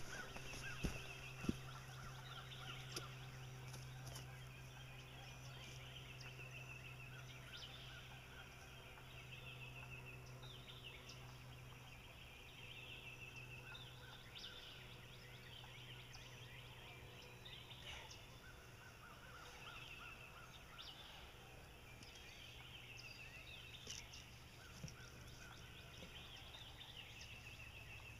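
Faint calls of birds in the surrounding woods: short trilling phrases recur every few seconds over a steady low hum, with a few soft knocks about a second in.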